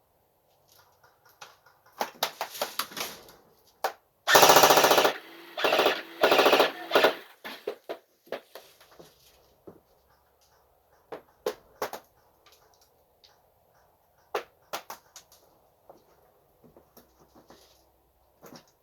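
Airsoft electric M249 light support gun firing on full auto: one loud burst of about a second, about four seconds in, then two shorter bursts right after, with scattered single cracks and clicks of shots and BB hits before and after.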